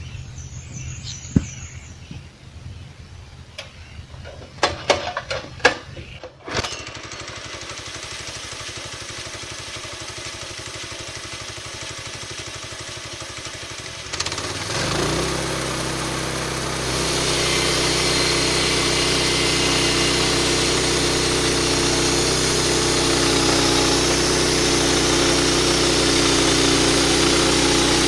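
A few knocks and clatters, then the small gasoline engine of a homemade bandsaw mill starts about six seconds in and runs steadily. About halfway through it speeds up and gets louder in two steps, then holds a steady higher speed, driving the blade wheels, which now turn slower on a larger 14-inch drive wheel.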